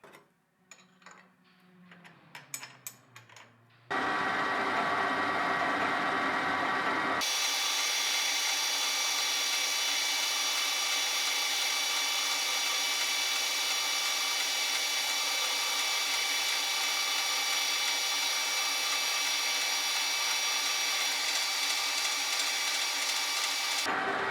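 A few light clicks and taps of the metal lathe being set up, then the lathe starts about four seconds in and runs steadily with a constant whine, taking a taper cut on a shaft with the taper attachment.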